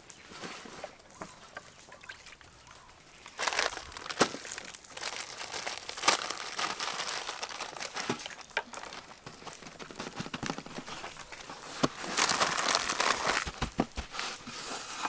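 Crinkling of plastic bags and gritty rustle of coarse salt being rubbed onto whole raw fish on metal trays, with scattered small clicks and taps. It starts faint, grows busier from about three and a half seconds in, and is densest near the end.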